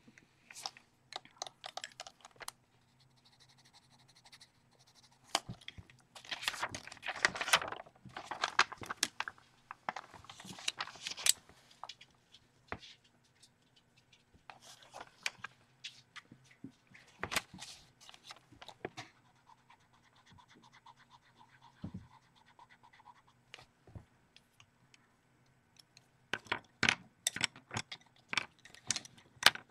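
Scratching and rustling of paper in irregular bursts: a pastel pencil working on a colouring-book page, and a sheet of greaseproof paper being slid over it.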